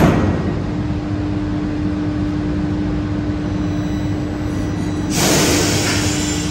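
Bombardier metro train standing at the platform: its sliding doors shut with a thud at the start, then a steady hum with a held low tone. About five seconds in, a loud hiss of air sets in just before the train moves off.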